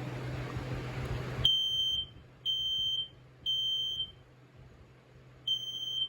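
Kidde smoke alarm sounding its high-pitched horn in the temporal-three pattern: three half-second beeps a second apart, a pause, then the next three. A steady rushing noise cuts off sharply as the first beep starts, about a second and a half in.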